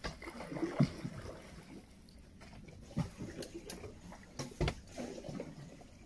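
Small wooden boat moving through a reedy marsh channel: water sloshing against the hull, with a few sharp knocks of wood.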